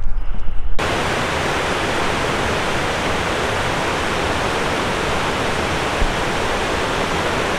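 Steady, even rush of falling water, cutting in abruptly about a second in.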